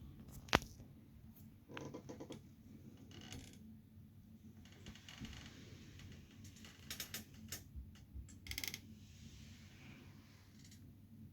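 Keychron K1 low-profile mechanical keyboard keys being pressed in scattered clicks and short bursts, with pauses between them.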